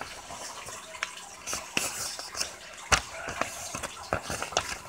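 A sheet of paper folded in half being handled and pressed along its crease, rustling and crackling irregularly, with one sharper crackle about three seconds in.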